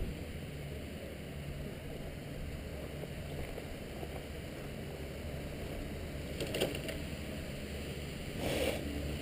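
Steady low rumble of a chairlift ride picked up by a helmet-mounted camera, with a few sharp clicks about six and a half seconds in and a short rustle near the end.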